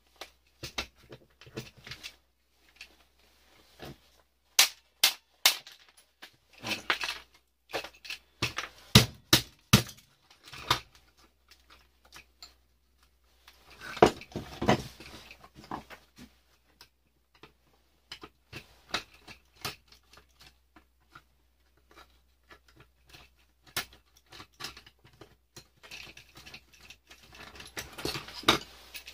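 Plastic circuit breakers and hand tools clicking and clattering on a workbench as a fuse box is taken apart. Scattered sharp knocks and clicks, with a few denser, louder runs of clatter.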